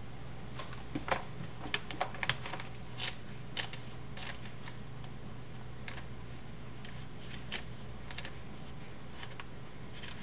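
Scattered light clicks and taps at an irregular pace, some in quick clusters, over a steady low hum.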